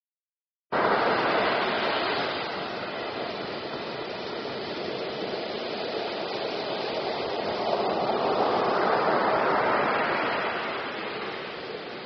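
Sea surf: waves breaking and washing up a beach, a steady rushing that cuts in suddenly about a second in and swells again with the next breaker.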